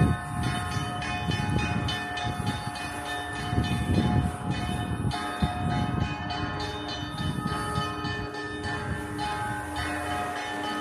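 Orthodox cathedral bells ringing a festive peal: several bells struck again and again, their tones overlapping and ringing on. An uneven low rumble runs underneath.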